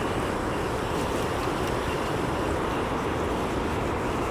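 Steady rush of water flowing through a spillway, an even noise that does not change.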